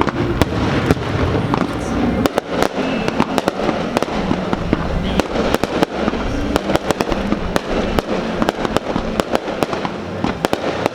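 Fireworks display: a dense, continuous crackle of sharp pops, many each second, thickening about two seconds in.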